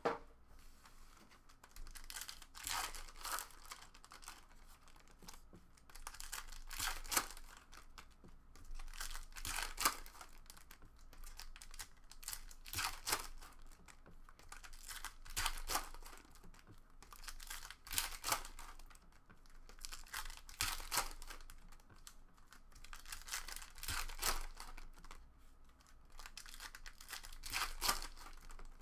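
Foil trading-card pack wrappers crinkling and tearing as packs are ripped open by hand, in short irregular bursts every second or two.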